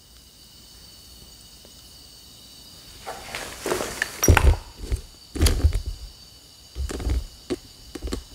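Quiet at first, then from about three seconds in a run of irregular footsteps and scuffs on a debris-strewn concrete floor.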